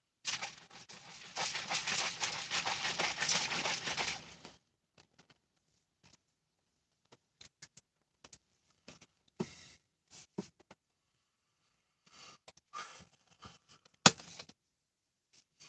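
Rustling and scraping of a phone being handled, dense for the first few seconds. Scattered light clicks and taps follow, with one sharper click near the end.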